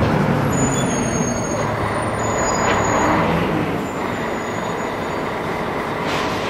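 Traffic noise: a steady rush of passing vehicles, with a low engine hum dying away near the start and a brief hiss now and then.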